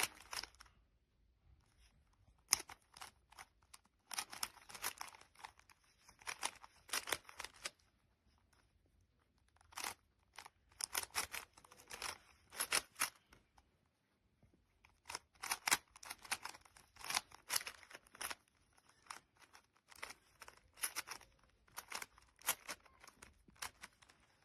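GAN i-Carry smart 3x3 speed cube being turned fast by hand: runs of rapid plastic clacking turns lasting a few seconds each, with short pauses between them.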